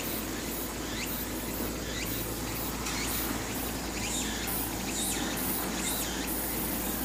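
Insects buzzing very high in quick, evenly spaced pulses that stop about six seconds in, over a steady outdoor hum. Short rising chirps recur about once a second.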